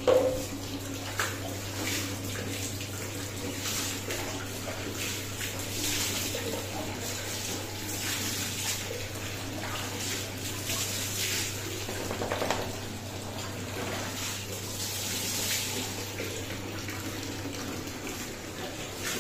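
Water running and splashing over a dog's coat and onto a tiled bathroom floor during a bath: a steady hiss of water with irregular splashes. A steady low hum runs underneath.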